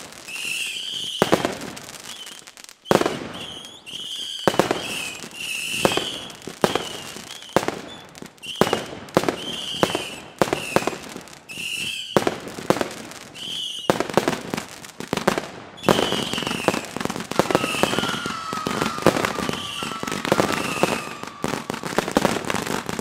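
Daytime fireworks barrage firing salute shells: a rapid, irregular run of sharp bangs, several a second at times, with only brief gaps. A short, high, arching tone recurs between the bangs.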